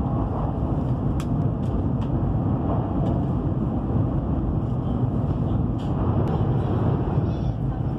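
Steady rumble and hiss of a high-speed train running at speed, heard from inside the passenger carriage, with a few faint clicks.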